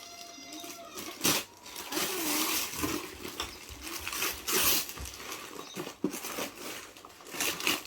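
Gift packaging being torn open and rustled by hand, in repeated noisy bursts of tearing and crinkling. The loudest bursts come about a second in and around four and a half seconds.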